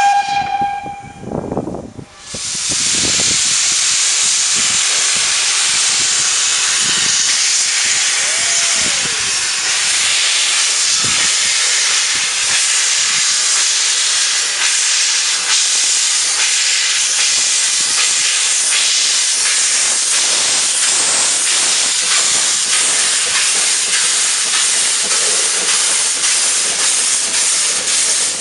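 A narrow-gauge steam locomotive, Vale of Rheidol 2-6-2T No. 8, gives a short whistle that ends about a second in. It then sets off with its cylinder drain cocks open, a loud, steady hiss of steam as it pulls away.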